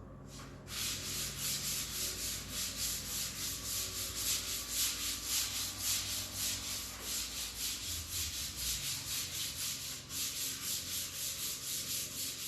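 Sandpaper rubbing back and forth over epoxy primer on a car body panel: a steady hiss pulsing with about two to three strokes a second, starting about a second in.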